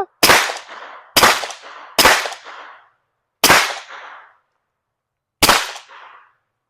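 Five suppressed 9mm pistol shots from an FN 509 Midsize Tactical fitted with a CGS Mod 9 suppressor, fired at an uneven pace with pauses of about one to two seconds. Each is a sharp report with a short ringing tail.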